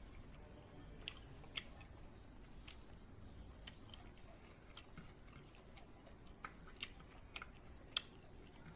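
Someone eating quietly: soft, irregular clicks and smacks of chewing, about a dozen spread through, the sharpest near the end.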